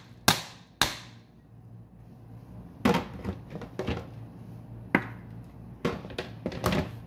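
A bowl knocked against the rim of a stainless steel pot as cooked rice is tipped out into it: sharp taps and knocks, two in the first second, then several more in irregular groups after a pause of about two seconds.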